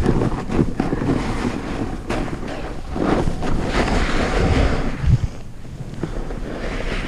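Wind buffeting the helmet or chest camera's microphone while riding fast downhill, with the scrape and hiss of edges cutting through chopped-up snow on each turn. It eases off after about five seconds.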